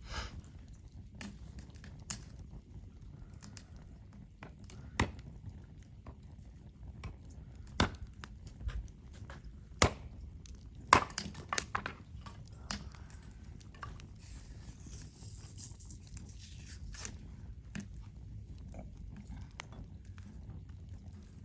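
Wood fire burning in a campfire stand, crackling with scattered sharp pops and snaps, a few louder ones near the middle, over a low steady rumble.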